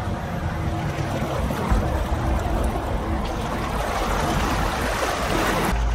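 Land Rover Defender's tyres rolling through a muddy, water-filled rut, with steady splashing and sloshing of water over a low vehicle rumble.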